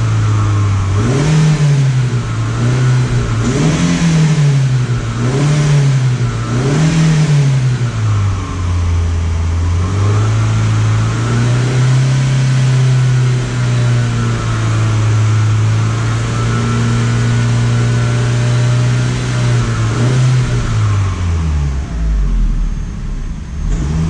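2007 Holden Astra AH's engine revved in four quick blips that fall back each time, then held at a raised, steady speed for about ten seconds before dropping back to idle near the end. The engine is running lean from a vacuum leak (fault code P0170), and the revs are an attempt to knock it out of open loop into closed loop.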